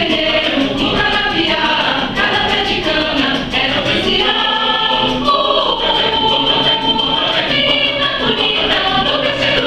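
Mixed choir of men's and women's voices singing in Portuguese, in a quick, steady rhythm.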